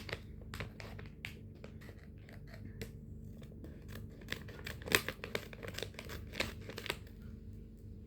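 Plastic snack package being opened with scissors: irregular snips, crinkling and rustling of the wrapper, with the sharpest crackle about five seconds in.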